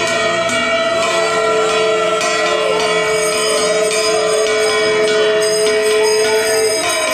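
Puja bells ringing continuously with rapid strikes, over long held tones that break off briefly near the end.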